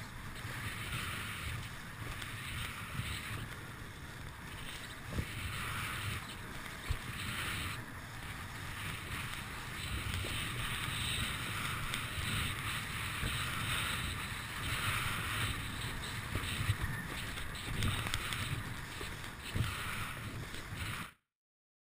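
Wind buffeting a body-mounted action camera's microphone, with water hissing and slapping under a kiteboard riding fast over choppy water. The sound cuts off suddenly near the end.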